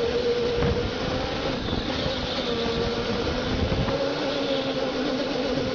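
Electric go-kart motor whining steadily, its pitch drifting slightly up and down with speed, over a rough low rumble of the kart rolling on the track, heard from onboard the kart.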